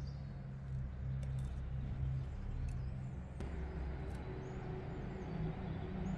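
Steady low hum of an engine running, with a higher tone joining in about halfway through.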